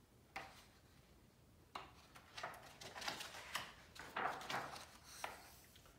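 Page of a hardcover picture book being turned by hand: a soft knock about a third of a second in and another near two seconds, then a few seconds of paper rustling and flapping.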